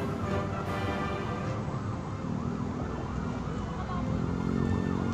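Emergency-vehicle siren sounding in street traffic, its pitch sweeping up and down over and over, over a steady low traffic rumble.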